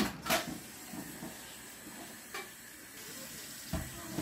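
A steady hiss, with a few short knocks at the start and a brief voice sound near the end.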